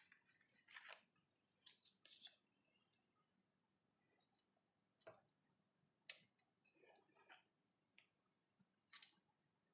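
Faint, scattered clicks and rustles of hands working a plastic jam-tart mould: pressing it through soft pastry dough onto cling film and setting the cut tarts down.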